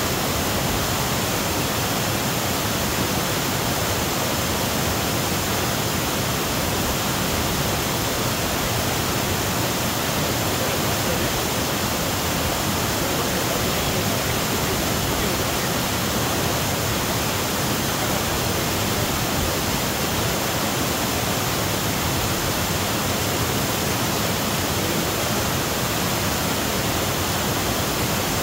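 Waterfall: white water cascading over boulders, a steady, even rush with no change in level.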